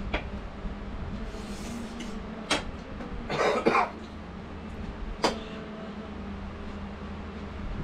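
A short cough about three and a half seconds in, amid a few sharp clinks of chopsticks and forks on plates, over a steady low hum.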